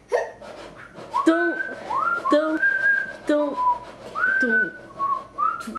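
Someone whistling a short tune of about eight notes, each sliding up and then held, with a lower hummed or sung tone under some of them.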